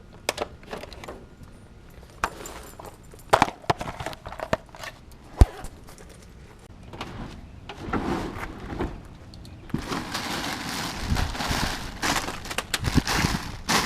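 Handling noise: scattered sharp clicks and knocks, then from about ten seconds in a steady crinkling rustle.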